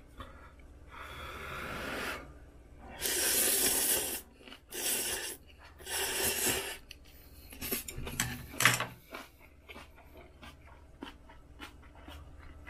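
A person slurping ramen noodles: several noisy slurps of about a second each, with small clicks between them and one sharp knock about two-thirds through.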